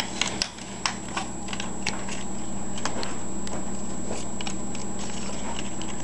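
African grey parrot tearing and crumpling paper with its beak: irregular crackles and snaps, thickest in the first few seconds.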